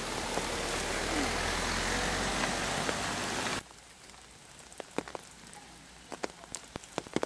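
Rain: a steady hiss, then after a sudden drop in level about three and a half seconds in, irregular sharp ticks of raindrops falling close by.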